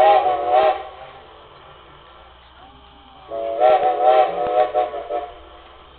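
Steam locomotive's chime whistle sounded twice: a short blast of about a second, then about three seconds in a longer answering blast of about two seconds, each a steady chord of several tones.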